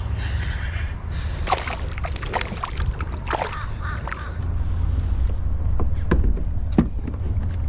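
Water sloshing around a kayak, with several sharp knocks and clicks spread through it, over a steady low rumble.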